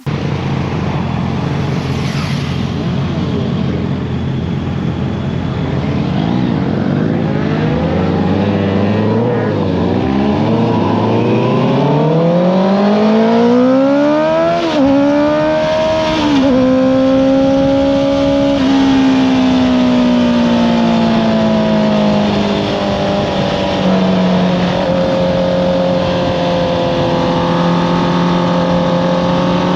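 Honda CBR650R inline-four engine with an Akrapovič exhaust, heard onboard. It runs steadily at first, then the revs climb for several seconds to a peak around the middle, dip and rise once, fall off gradually and settle to a steady run near the end.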